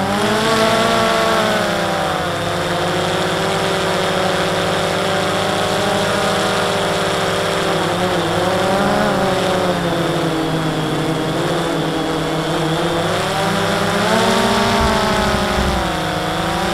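DJI Phantom 2 quadcopter's motors and propellers whining in flight, heard from on board, the pitch wavering up and down as the motors speed up and slow down.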